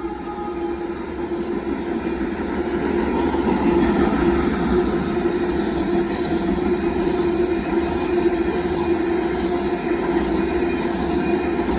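Union Pacific freight train of gravel hopper cars rolling past, a steady rumble and clatter of wheels on rails that grows louder about three seconds in.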